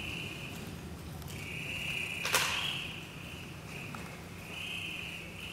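Electronic sound from a video motion-tracking system driven by a dancer's movements: a high hissing sound that swells and fades in stretches, with one sharp crack about two and a half seconds in.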